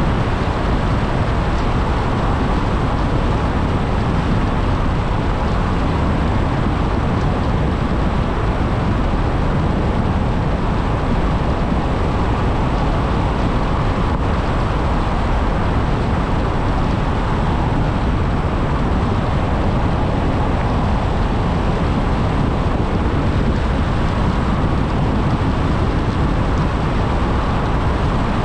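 Steady noise of a car driving along a road, an even rush heaviest in the bass, with no change in speed or pitch.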